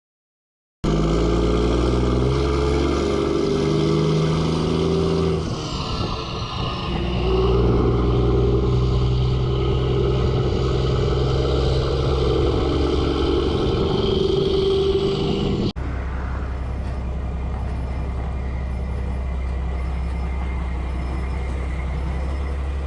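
Mack truck's diesel engine running under load. The engine note drops and climbs again as it shifts gear. An abrupt cut about 16 seconds in leaves a quieter, steady engine drone.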